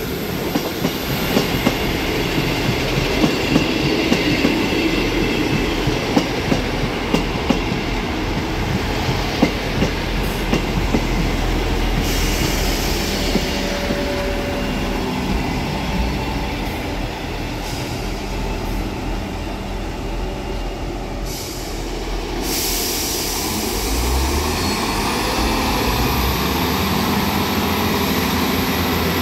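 South Western Railway Class 159 diesel multiple unit running slowly alongside the platform, its wheels clicking regularly over rail joints for the first several seconds over a steady rumble. A rising tone comes in near the end.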